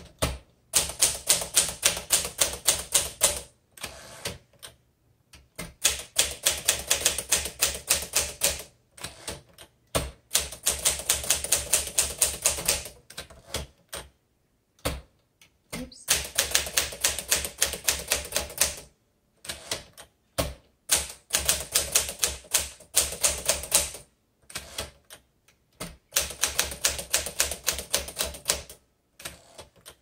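1957 Smith Corona Sterling manual typewriter being typed on: runs of quick, sharp key strikes, several a second, broken every few seconds by short pauses.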